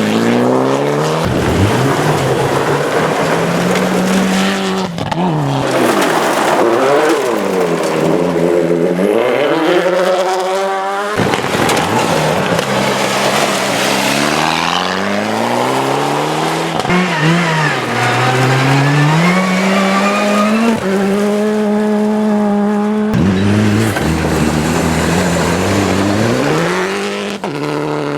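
Rally car engines at hard throttle, the note climbing and dropping again and again as the cars rev up and shift gear. The sound changes abruptly a few times, as one car gives way to the next.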